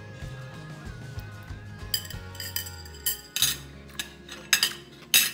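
Background music at first. From about two seconds in, several sharp clinks and knocks of crockery being handled on a table, the loudest near the end.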